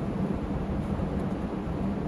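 A machine running steadily, a low rumble with a constant hum under it.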